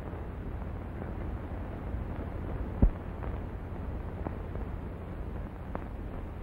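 Steady hiss and crackle of a worn 1930s optical film soundtrack, with one sharp thump a little under three seconds in and a few faint clicks.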